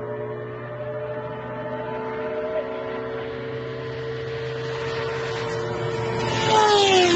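A high-revving vehicle engine at full speed, approaching with a steady whine that slowly grows louder, then passing by very fast near the end, its pitch falling steeply as it goes past.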